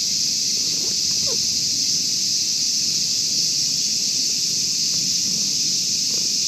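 Steady high-pitched buzz of a summer insect chorus, with soft close rustling and licking from a cat grooming itself.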